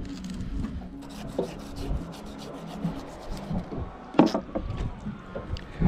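Fillet knife slicing and scraping along a coral trout's bones on a boat's hatch lid, in many short strokes, with one louder scrape about four seconds in.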